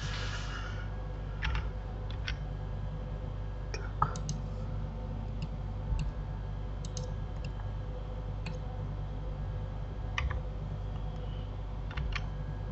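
Scattered clicks of a computer mouse and keyboard keys as someone works at a desktop, a dozen or so at irregular intervals, the sharpest about four seconds in. They sit over a steady low electrical hum.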